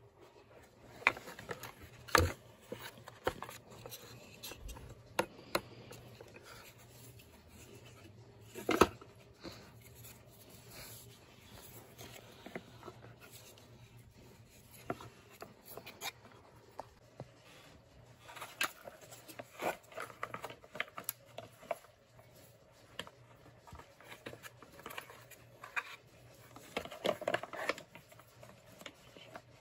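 Scattered clicks, taps and scraping from hands handling an opened shop vac motor and its plastic housing, with the sharpest knocks about two seconds and nine seconds in. The motor is not running.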